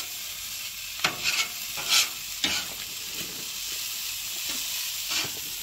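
Chorizo, potatoes and egg sizzling on a hot griddle, with a utensil stirring and scraping the food and knocking on the griddle a handful of times, loudest about two seconds in.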